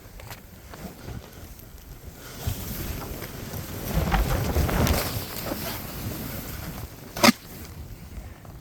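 Snowboard sliding through fresh powder snow: a rough swishing hiss that swells around the middle, mixed with wind on the microphone. A single sharp click comes about seven seconds in.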